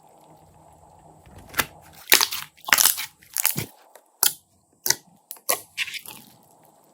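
A run of sharp crunching crackles, about eight strokes over four seconds, loudest in the middle of the run and trailing off near the end.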